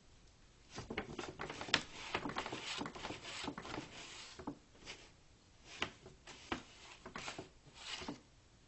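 A bag rustling and crinkling as a cat moves about in it, in irregular scratchy bursts that are busy for the first few seconds and then thin out to a few separate crackles.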